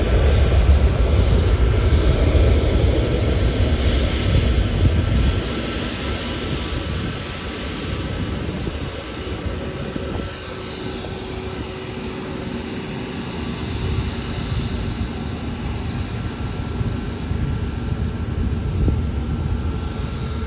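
Jet engines of an arriving Boeing 737-900 airliner passing. A loud, low rumble for about the first five seconds dies down to a quieter steady hum carrying a faint whine.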